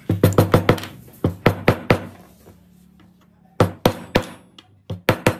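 Steel hammer tapping small hardwood sticks into slots in a pine board: sharp knocks in quick bursts of several strikes, with short pauses between groups as the next stick is set in place.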